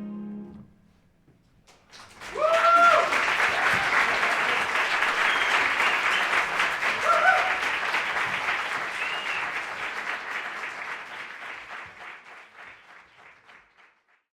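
The ensemble's last held chord cuts off, then after a short silence an audience bursts into applause with a few whoops. The applause slowly fades out.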